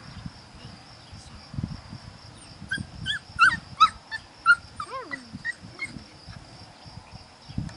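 Five-week-old puppies whimpering and yipping, a quick run of short high squeaks with one longer falling whine about five seconds in. Crickets chirp steadily behind.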